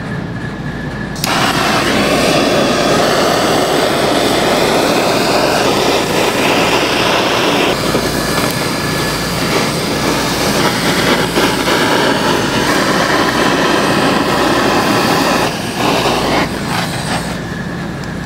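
Handheld gas blowtorch lit about a second in and running with a steady roar as its flame sears the barbecue-sauce glaze on a rack of pork spare ribs, caramelising it; the roar cuts off near the end.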